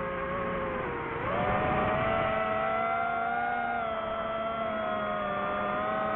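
DJI FPV drone's motors and propellers whining steadily. The pitch dips about a second in, then rises sharply and holds higher with small wavers as it climbs.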